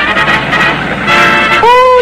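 Cartoon soundtrack music with brassy, horn-like held notes, ending on a note that swells and falls away.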